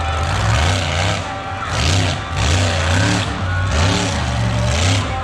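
Monster truck engine revving hard, its pitch rising and falling over and over.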